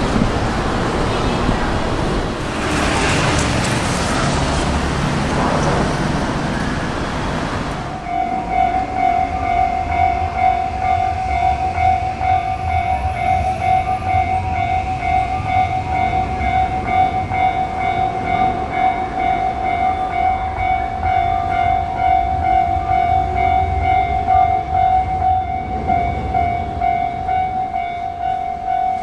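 Japanese railway level-crossing warning bell starts about eight seconds in and rings a steady, quickly repeating electronic ding over the low rumble of rail traffic. Before the bell, the broad rushing noise of a passing train.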